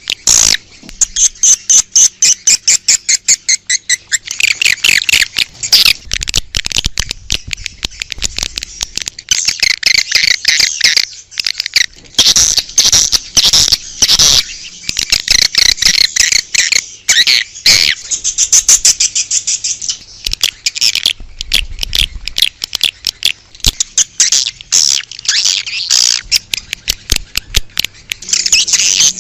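Edible-nest swiftlet calls on a recording: a dense, fast, high-pitched twittering of chirps and clicks in rapid bursts. This is the outdoor lure call played to draw swiftlets to a nest house.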